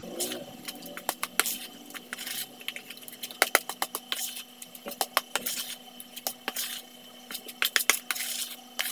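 A metal spoon stirring a wet, doughy carp bait mix in a plastic bowl. The spoon clicks irregularly against the bowl, with short scraping, squelching strokes through the mix every couple of seconds.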